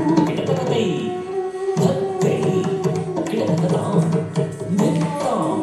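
Carnatic dance music for a Bharatanatyam Alaripu in ragamalika and talamalika: quick hand-drum strokes over sustained melodic tones.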